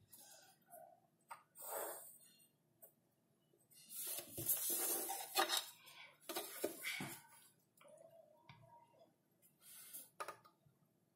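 Pencil and plastic ruler worked over drawing paper on a desk: scratchy rubbing and rustling in several short bursts. The longest and loudest comes about four to five and a half seconds in, as the paper and ruler are shifted.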